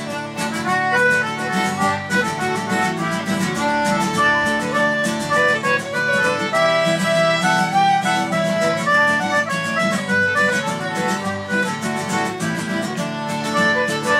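A small folk band playing an Irish tune, the fiddle leading with quick runs of notes over a steady, brisk rhythmic accompaniment.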